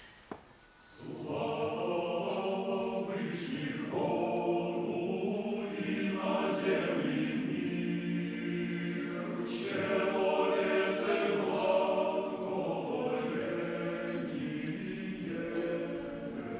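Male choir singing an Orthodox liturgical piece a cappella in several parts, with sustained chords and clear sibilant consonants. The singing begins about a second in after a short quiet.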